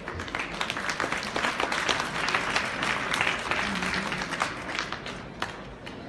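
Audience applauding: scattered claps build into full applause, then thin out to a few last claps near the end.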